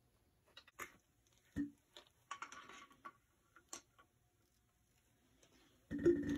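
Sparse metal clicks and ticks of a wrench and pliers against the fittings of a cast-iron hand pump, with a dull knock about a second and a half in and a short, louder scrape near the end.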